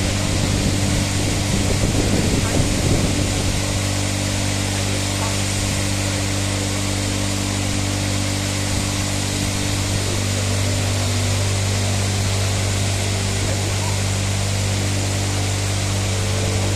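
Ambulance disinfecting and washing machine running: a steady low mechanical hum from its motor with a constant hiss over it.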